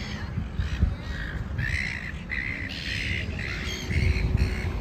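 A flock of seagulls squawking, many short harsh calls in quick succession that come thicker from about a second and a half in, over a steady low rumble.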